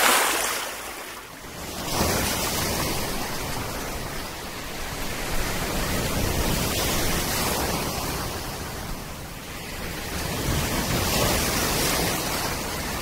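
Small waves washing and splashing in shallow water, a steady rushing noise that swells and eases over a few seconds at a time.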